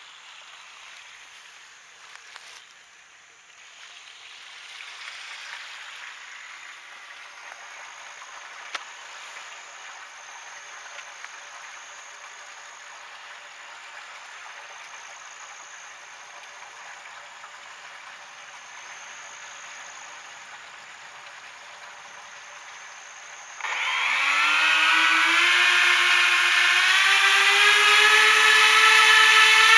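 Faint steady background hiss, then about 24 s in the twin brushless motors of an FPV boat spin up with its propellers into a loud whine whose pitch climbs in steps as the throttle is opened.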